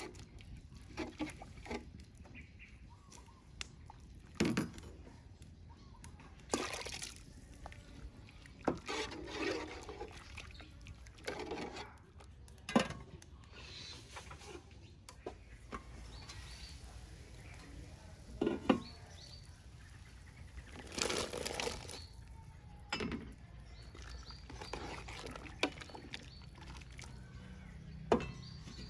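Cooking in a large aluminium pot of soup: a metal ladle stirring and clinking against the pot, with liquid splashing and sloshing. It comes as a string of separate clinks, knocks and splashes a second or more apart.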